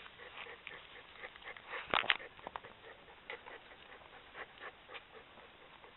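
Maremmano-Abruzzese puppies scuffling and tussling on grass: faint rustles and scattered light clicks, with a louder knock about two seconds in.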